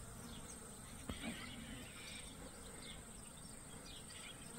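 Faint bush ambience: a steady high insect drone with scattered short, high chirps, and one faint tap about a second in.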